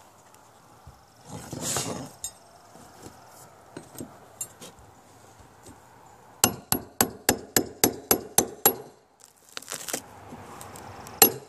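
Hammer striking a steel pry bar driven under fiberglass deck skin to lift it off the boat's wet core: a quick even run of about ten sharp metallic blows, about four a second, starting past halfway, with a couple more blows near the end. A scraping rustle comes earlier.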